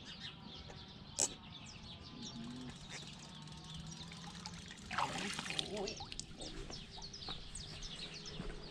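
Small birds chirping over and over, with water splashing about five seconds in as a young pirarara (redtail catfish) is let go by hand into the lake. A single sharp click about a second in.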